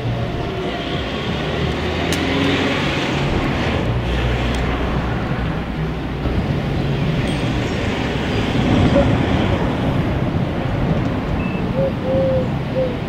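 GWR Castle-class 4-6-0 steam locomotive standing at the platform with a steady hiss of steam, over a low steady hum that fades about halfway through; no exhaust beats.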